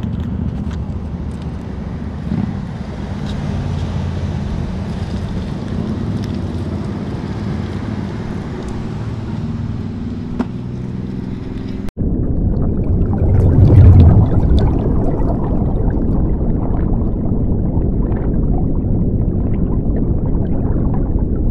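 Wind buffeting the camera microphone out on the jetty, a steady low rushing noise. About twelve seconds in it cuts off suddenly and a louder, denser rushing noise takes over.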